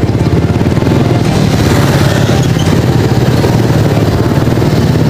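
A motorcycle engine running steadily, close to the microphone, with a low, rapid pulsing throb and no change in pitch.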